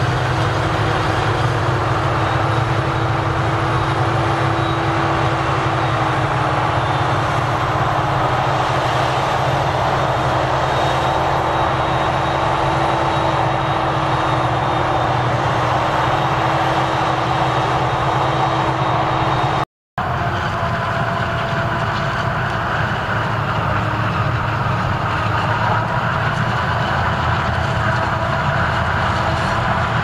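Claas Jaguar forage harvester running and chopping maize, a steady machine whine over the rush of chopped crop, with the tractor pulling the trailer alongside. The sound breaks off for a moment about two-thirds of the way in and resumes with a different balance of the same machinery.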